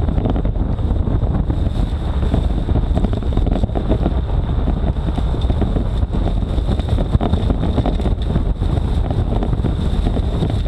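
Heavy wind buffeting the microphone of a fast-moving vehicle, over the low drone of its engine and tyres on a dirt track, with a thin steady high whine throughout.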